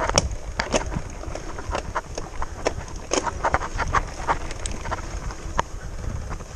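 Mountain bike riding down a dirt forest singletrack: irregular clicks, knocks and rattles, several a second, as the tyres hit roots and bumps and the bike's chain and parts clatter, over a steady low rumble.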